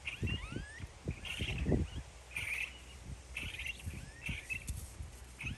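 A bird calls over and over, a short bright chirp about once a second, some with a sliding note. Underneath are irregular low thuds and rustling as an Asian elephant walks and feeds in tall grass.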